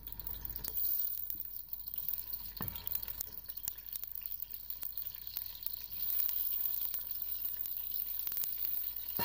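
Sliced onions frying in hot groundnut oil: a steady sizzle with frequent small pops and crackles, and one knock about two and a half seconds in.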